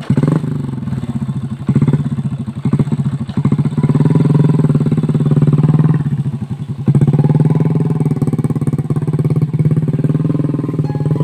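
Motorcycle engine running loud, its revs rising and falling unevenly, easing off briefly about two-thirds of the way through before picking up again.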